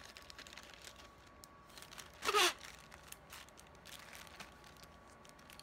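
Faint rustling and clicking of a small zip-top plastic bag of confetti being handled, with one short, loud breathy sound about two seconds in.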